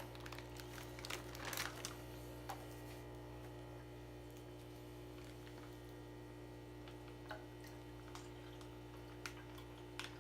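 Steady low electrical hum, with a cluster of light crinkles and clicks in the first three seconds and a few faint ticks later, from a plastic fish-shipping bag being handled and opened.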